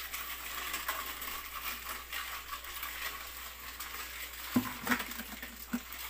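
Live mud crabs crawling in a shallow metal basin of water: a steady fine crackle of small clicks, with a few louder taps against the basin near the end.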